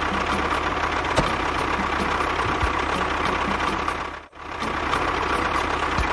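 A mini DIY tractor's motor running steadily with an even rhythmic ticking. It cuts out briefly about four seconds in, then carries on.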